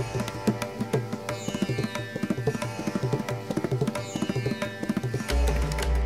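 Instrumental background music with rapid drum strokes over sustained string tones. The deep bass drops out and comes back about five seconds in.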